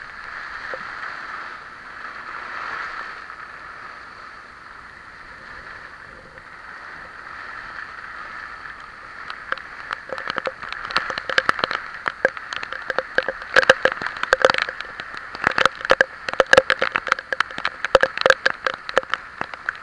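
Heavy typhoon rain with wind, a steady hiss. From about ten seconds in, a dense crackle of sharp taps joins it as raindrops strike the camera.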